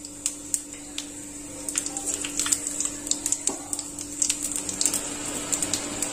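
Whole spices (cumin seeds, black peppercorns, cloves, bay leaf, black cardamom and cinnamon) sizzling and crackling in hot mustard oil in an aluminium kadhai. Sharp pops come thicker from about two seconds in as the spices crackle (tadka).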